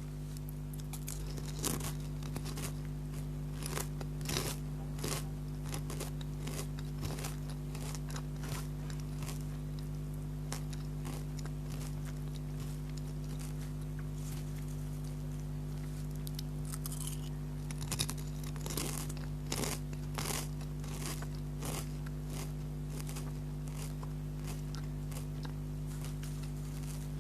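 Potato chips crunching as they are bitten and chewed close to the microphone, in irregular bursts that bunch up in the first few seconds and again past the middle, over a steady low hum.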